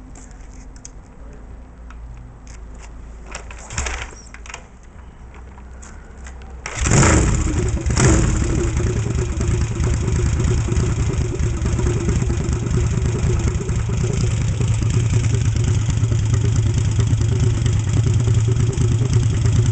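Freshly built Yamaha XS1 parallel-twin engine, with a 750 big bore kit, rephased to 277 degrees and running short cutoff exhaust pipes, being started on a test stand: a few knocks, then about seven seconds in it fires up loudly, revs briefly and settles into steady running.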